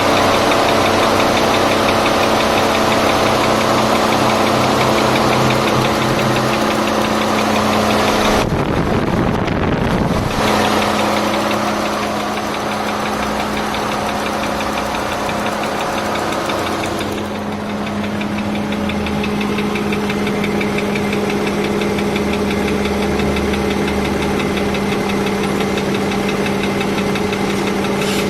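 Mercedes-Benz M112 3.2-litre V6 running at a steady speed with a rhythmic knock from the engine. The sound goes briefly muffled about nine seconds in.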